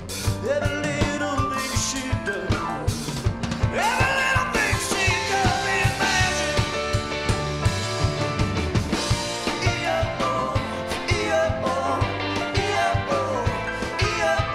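Live rock band playing: a sung lead vocal over electric guitar, bass guitar and a drum kit.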